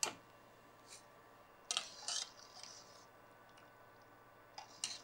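Steel wire-mesh skimmer scraping and clinking against a kadai while scooping fried aval (flattened rice) out of hot oil: a click about a second in, a short cluster of scrapes around two seconds, and two more clinks near the end.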